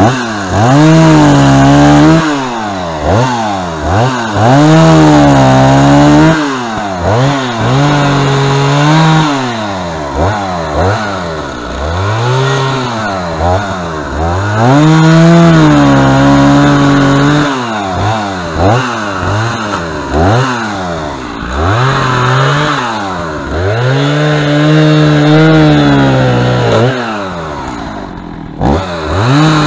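Two-stroke chainsaw revved over and over, its engine climbing to high speed and dropping back every second or two, sometimes held at full revs for a second or two. It falls away briefly near the end before picking up again.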